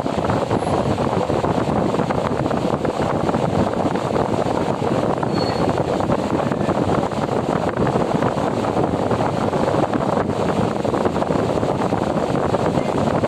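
Arge Twister 50 cm wall fan running at full speed, a steady rush of air with wind noise on the microphone.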